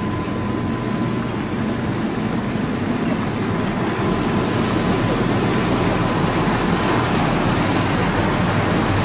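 Patrol boat engines running steadily under way, with water rushing along the hull. A faint steady whine sits above the rumble, and the sound grows a little louder about four seconds in.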